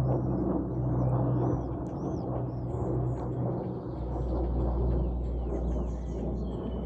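Airplane overhead: a steady low engine rumble with a droning hum, easing slightly after the first couple of seconds, while small birds chirp and twitter.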